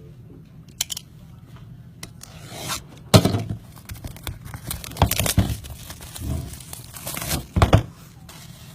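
Packaging of a trading-card box being torn open and handled: a series of sharp rips and crinkling rustles, the loudest a little after three seconds and again near the end.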